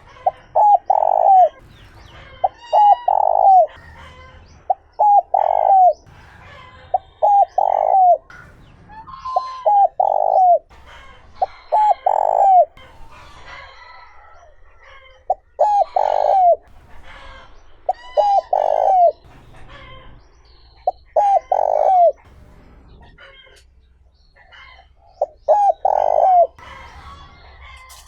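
Spotted dove cooing: a repeated phrase of a few short notes ending in a longer one, given about every two to three seconds, with other small birds chirping in the background.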